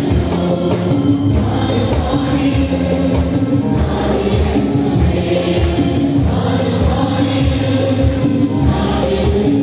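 Live Christian worship music played on electronic keyboards, with a steady beat and singing voices.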